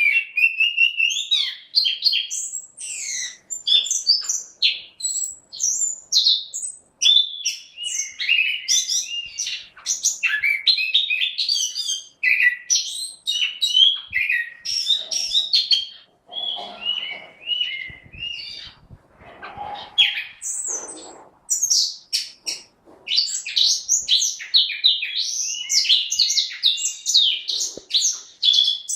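Chestnut-capped thrush (anis kembang) singing a fast, varied song of high whistled phrases. It breaks off for a few seconds about midway and then resumes.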